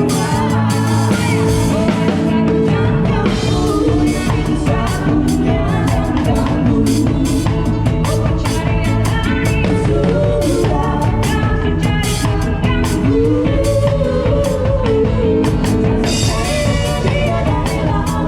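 Live band playing a song with a drum kit, a singer's voice carrying the melody.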